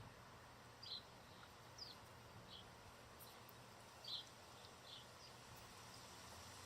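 Faint songbird chirps: about five short, high notes spaced roughly a second apart, two of them a little louder, over a quiet background hiss.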